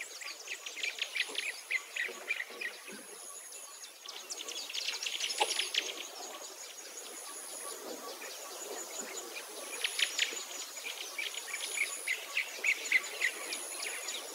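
Birds chirping in many quick short calls, over a steady high-pitched insect trill that pulses on and off.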